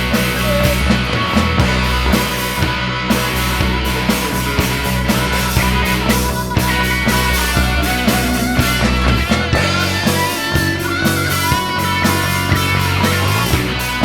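Instrumental break of a rock song: the full band plays with a steady beat while a wavering lead line bends and slides over it.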